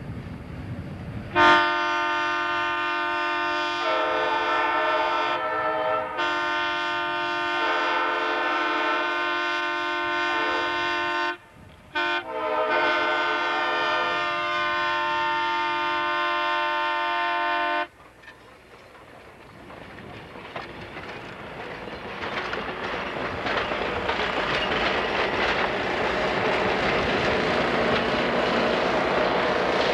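Diesel locomotive air horn blowing the grade-crossing signal: two long blasts, a short one and a final long one. After it the locomotive's diesel engine grows steadily louder as it draws near and passes, with wheels clicking over the rail joints.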